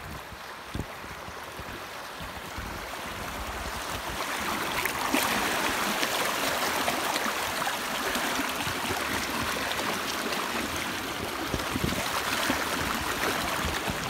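Shallow river water rushing and splashing over rocks in a riffle, growing louder about four seconds in as the tubes run through the white water.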